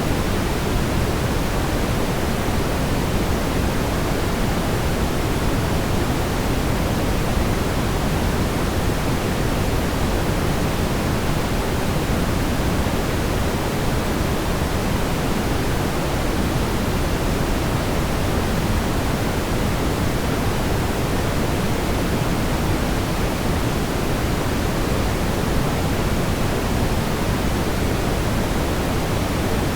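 Synthetic brown noise: a steady, unbroken deep hiss, heaviest in the bass and fading toward the treble, with no changes or other sounds.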